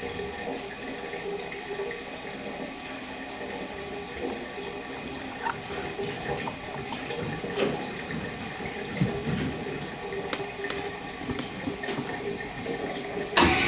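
Semitool ST-240 spin rinse dryer in its DI-water rinse cycle: a steady spray of water inside the bowl, with a few light clicks. Near the end the dry cycle cuts in with a sudden, much louder hiss.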